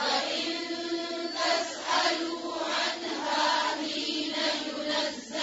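A group of voices reciting a Quranic verse in unison, a chorus of learners repeating the phrase after the teacher in tajweed style. The voices blend into one thick, blurred chant, much softer than the teacher's single voice.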